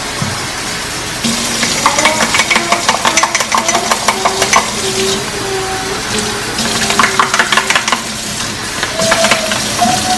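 Kitchen tap running into a ceramic mug while a spoon stirs gravy mix and water in it, clinking and scraping rapidly against the mug in two spells: from about a second in to past four seconds, and again around seven seconds.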